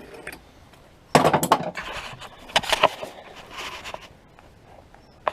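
Clattering knocks and scraping from handling the raised body and chassis of a Daihatsu Fourtrak, in two bursts: one about a second in, another near three seconds in.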